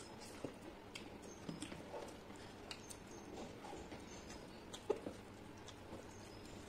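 Quiet mouth sounds of someone chewing and smacking on a mouthful of rice and fish curry, with fingers squishing and mixing rice on a steel plate. The sounds are scattered short clicks, the sharpest about five seconds in.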